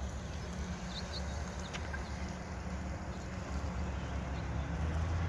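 Outdoor ambience with a steady low mechanical hum that grows louder toward the end, and a faint chirp or two from a bird.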